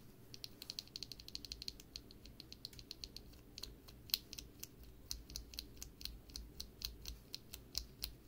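MMD NP linear mechanical keyboard switches clicking as they are pressed: a fast run of rapid presses for the first two seconds or so, then steadier presses about two to three a second. The switches sound crisp and clean.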